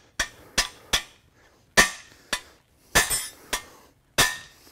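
Hammer blows on the end of a cam bearing removal tool's driver bar, about eight sharp metallic strikes at an uneven pace. The bar is driving a worn cam bearing out of a Ford 302 V8 block's cam bore.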